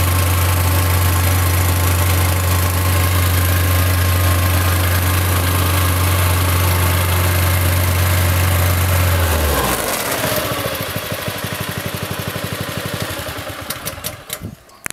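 Makita EP52 plate compactor's Subaru Robin EX13 single-cylinder engine running steadily, then shut off about nine and a half seconds in. The engine and vibrator plate wind down, their beat slowing and fading out over the next few seconds.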